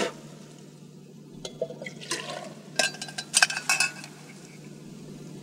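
Water poured from a camp mug into a small metal pot, with a run of light metallic clinks and knocks from the cup and pot being handled, mostly between about two and four seconds in.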